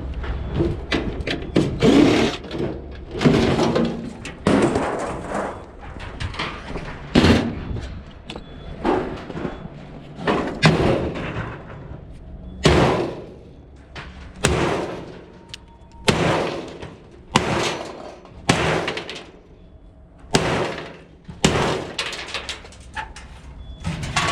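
Irregular metal clanks and bangs, roughly one every second or so, some ringing briefly, with scraping between them, from a clothes dryer's sheet-metal cabinet and parts being pulled apart for scrap.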